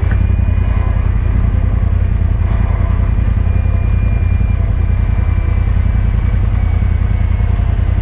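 UTV engine idling steadily, a loud, even low rumble close to the microphone.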